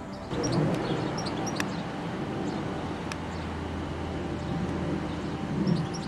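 Small songbirds chirping in many short, high calls over a low, steady rumble of outdoor noise, which sets in abruptly just after the start.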